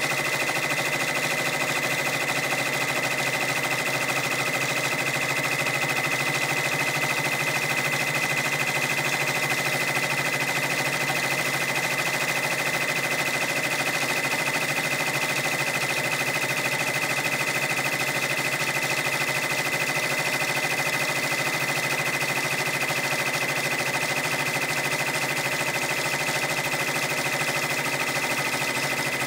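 Brother PR655 six-needle embroidery machine stitching steadily at full speed: a rapid, even chatter of needle strokes over a steady high hum.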